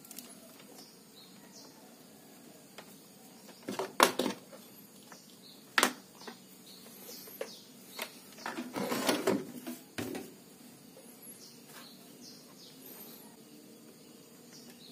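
Handling noises on a workbench while multimeter probes are set up: a few sharp knocks and rustles, the loudest about four seconds in and a longer rustle about nine seconds in. Faint bird chirps in the background.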